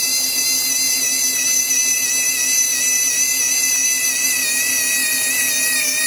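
Remote-control toy dump truck giving off a steady electric whine, several fixed high tones over a low hum, as its tipper mechanism is worked.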